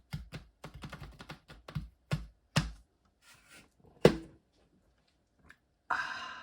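Quick small plastic clicks and taps as the impact driver's parts are handled and fitted, with sharper knocks about two and a half and four seconds in, the second the loudest, and a short rustle near the end.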